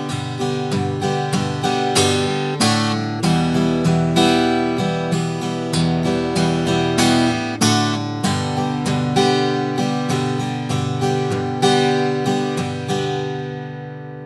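Acoustic guitar strummed with a pick in a steady down-up pattern through G, D and E minor chords, ending on a G chord left to ring and fade out.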